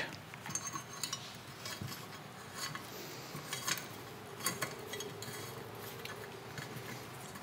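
Wiring harness being pushed into a handlebar tube while the slack is pulled through: faint rustling with scattered light clicks and scrapes of wires and pins against the bar.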